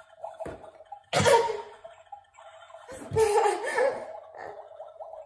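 A baby vocalising with his mouth pressed against a door panel: a steady, wavering hum, broken by two louder, noisy mouth bursts about a second in and about three seconds in.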